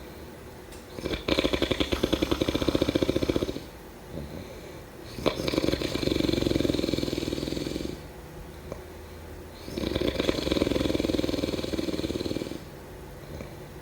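A person snoring: three snores about four to five seconds apart, each lasting two to three seconds with quieter breathing between. The first snore has a fast fluttering rattle.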